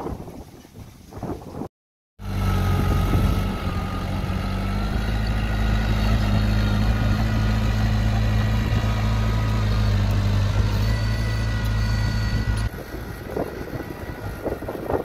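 A heavy machine's engine running at a steady pitch, with a thin high whine over its low drone; it starts abruptly after a brief dropout about two seconds in and cuts off sharply near the end, giving way to rough wind-like noise.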